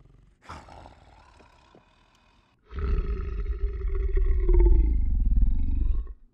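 Monster growl and roar, a horror sound effect: a softer growl about half a second in, then a loud, deep roar from about three seconds in that lasts about three seconds, its pitch sagging slightly, and cuts off suddenly.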